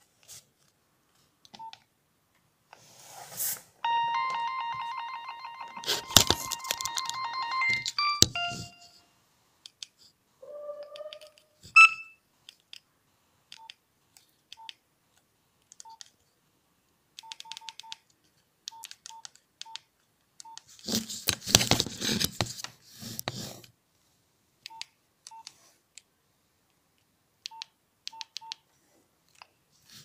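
Nokia 2650 mobile phone keypad beeps: short single electronic beeps as its menus are scrolled, with a few seconds of fast-repeating electronic tones about four seconds in. A stretch of handling rustle and knocks comes about two-thirds of the way through.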